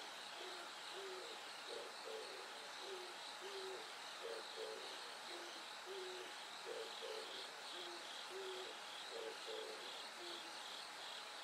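A bird's low hooting call, short notes stepping up and down in a repeated phrase, stops near the end. Under it, bell crickets chirp steadily at a high pitch.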